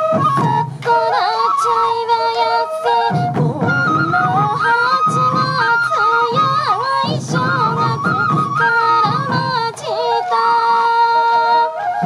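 Sansa odori festival music: bamboo yokobue flutes playing a stepped melody over repeated beats of body-worn sansa taiko drums. A woman's folk-song voice sings with ornamented slides in pitch.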